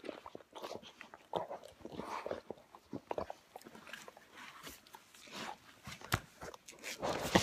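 Two Weimaraners play-fighting with their mouths: an irregular run of wet mouthing, snapping jaws and clicks of teeth, with scuffling against a leather sofa. There is a louder burst near the end.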